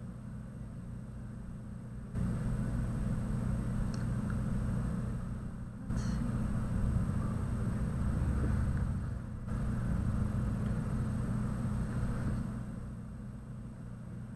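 Steady low hum with a faint hiss, stepping abruptly louder about two seconds in and again near six seconds, then dropping back near the end.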